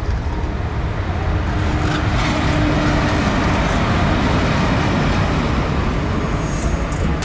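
Indian Railways electric locomotive and passenger coaches passing close by at slow speed: a steady rumble of wheels on the rails that grows louder about a second in, with a few sharp clicks near the end.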